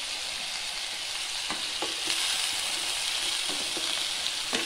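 Cut vegetables sizzling in coconut oil in a pan, a steady hiss, while a wooden spoon stirs them with a few light knocks against the pan.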